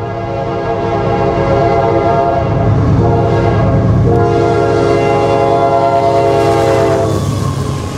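Locomotive air horn blowing a held chord over the low rumble of a train. It breaks briefly about three seconds in, changes again about four seconds in, and stops about seven seconds in.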